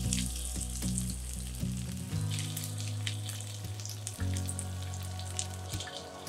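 Cheese-coated broccoli florets sizzling in oil in a heated frying pan, a steady high hiss with small crackles as more florets are set in.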